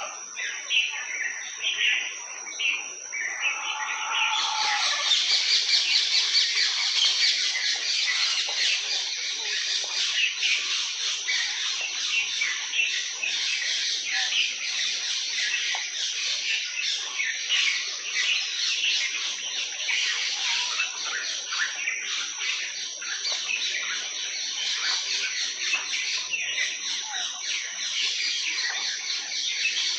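Many small birds chirping at once in a dense, continuous chorus, which grows fuller about four seconds in, over a steady high-pitched tone.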